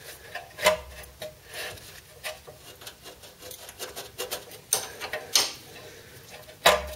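Steel ring spanner clicking and scraping on a seized suspension bolt as it is worked back and forth, with a few sharp metallic knocks. The bolt is very tight and at risk of shearing.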